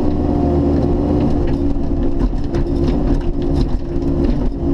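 Bobcat E50 mini excavator's diesel engine running steadily under hydraulic load, heard from inside the cab, with scattered sharp cracks and knocks as the ripper tooth tears through the stump's roots.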